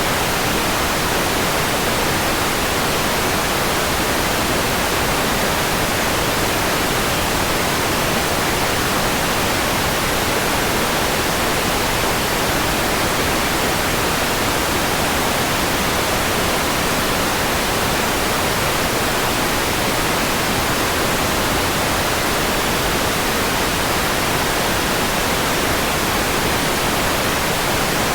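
Steady white noise: an even, unchanging hiss across the whole range, with no other sound.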